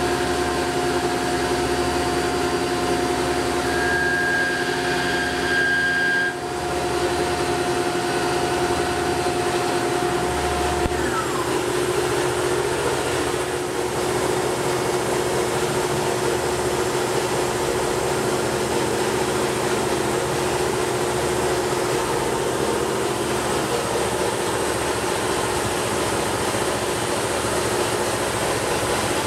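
Tormach PCNC 1100 CNC mill milling an aluminum block, a steady spindle and cutting whine over a constant machine hum. About eleven seconds in, the highest whine stops with a short falling pitch, and the steady machine hum carries on.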